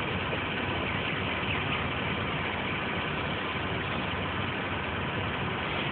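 Steady, unbroken running noise of an idling vehicle engine.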